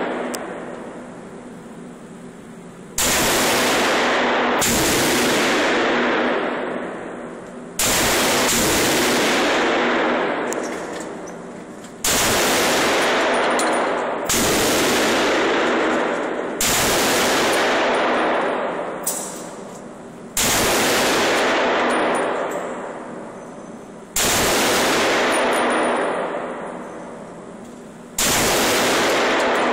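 HS2000 pistol chambered in .357 SIG fired one shot at a time at an indoor range: about ten sharp shots spaced roughly one and a half to four seconds apart. Each shot echoes and dies away over a couple of seconds.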